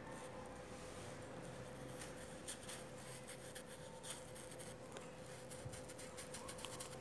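Flat paintbrush working wet paint onto a rubber mat: faint, short scratchy brush strokes, coming more often near the end, over a faint steady hum.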